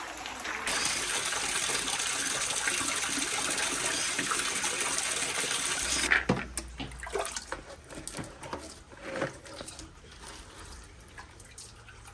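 Water running steadily onto cooked maize kernels in a plastic draining basket as they are rinsed, cutting off about six seconds in. After that, scattered clicks and rustles of the wet kernels being handled and dropped into a plastic basin.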